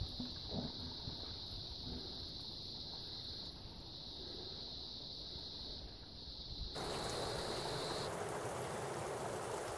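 Spring water running and splashing, an even rushing that starts abruptly about two-thirds of the way in. Before it there is only faint low background noise under a steady high whine.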